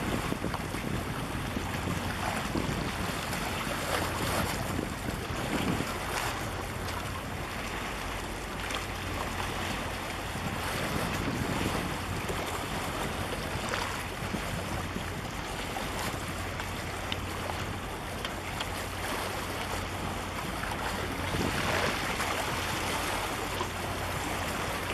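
Wind buffeting the microphone over water washing against the shore, in uneven gusts, with a steady low hum underneath.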